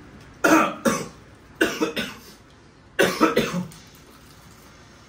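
A person coughing in three short fits, about half a second, a second and a half and three seconds in, the first and last each with two or three coughs.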